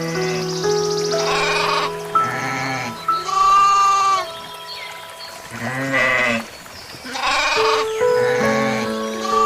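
Four wavering bleats from a sheep or goat-like animal, each under a second long and spaced a second or two apart, over soft background music with held notes.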